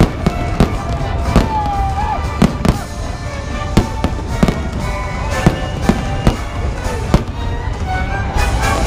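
Aerial fireworks display: a quick, irregular series of loud bangs and pops, roughly two a second, over a steady low rumble, with music playing underneath.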